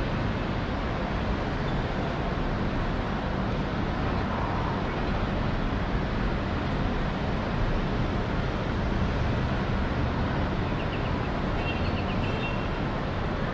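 Steady, unbroken roar of distant city traffic heard from high above the streets, with a few faint short high sounds near the end.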